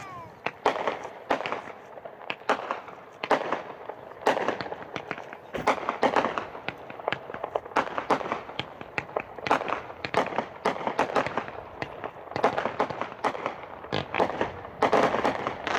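200-gram consumer fireworks cake firing: a rapid, unbroken string of sharp bangs, several a second.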